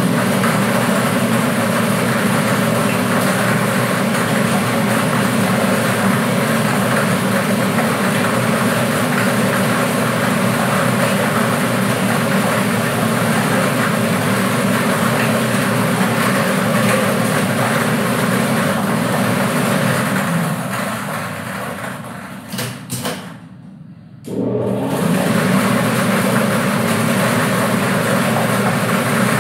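Lottery draw machine running: its air blower roars steadily while the white balls tumble in the clear acrylic globe. Near the end it dies down, cuts out for about a second, then starts up again at full strength.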